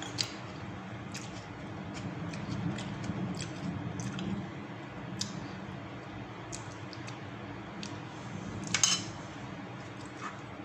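Close-up eating sounds: wet chewing with scattered light clicks of a spoon against a plate or bowl, and one louder clatter near the end, over a steady low background hum.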